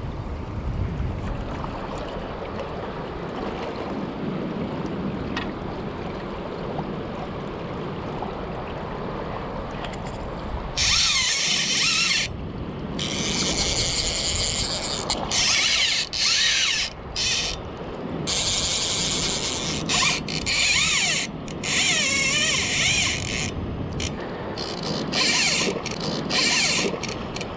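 Steady rush of river current for the first ten seconds or so. Then, about eleven seconds in, a click-and-pawl fly reel starts screaming in repeated bursts, each about a second long, as a hooked steelhead runs and strips line off it.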